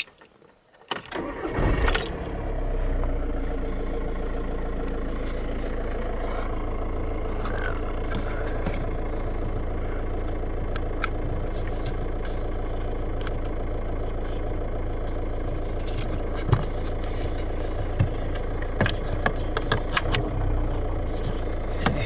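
VW Golf Mk5 engine cranking and catching about a second in, flaring briefly, then settling into a steady idle. A few light clicks and knocks come near the end.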